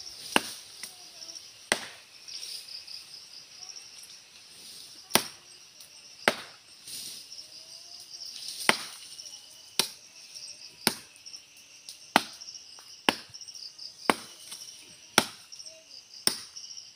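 A machete chopping into a tree trunk near its base: about a dozen sharp chops, mostly about one a second, with a pause of a few seconds near the start. Insects buzz steadily behind.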